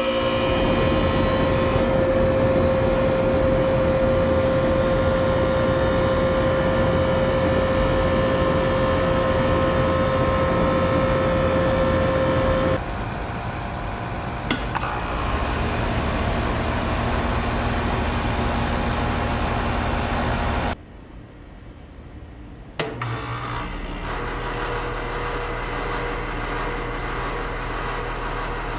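Outdoor air-conditioner condensing units running: a steady mechanical hum with a strong held tone for the first dozen seconds. The sound then changes abruptly to another steady running hum, drops quieter for about two seconds around two-thirds through, and a lower steady hum takes over for the rest.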